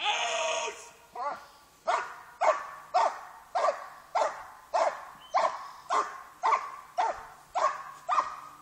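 A dog barking steadily and rhythmically, nearly two barks a second, after a longer, louder outburst at the very start.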